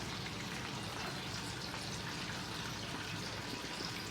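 Steady, even hiss with no distinct strokes or events.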